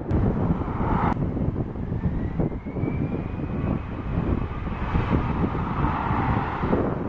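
Jet airliner taxiing: a steady low engine rumble with a faint high whine that rises slightly in pitch partway through.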